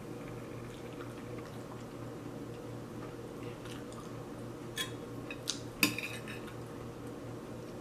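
A metal spoon clinking and scraping against a ceramic plate while scooping rice: a few sharp clinks about five seconds in, the last the loudest, over a steady low hum.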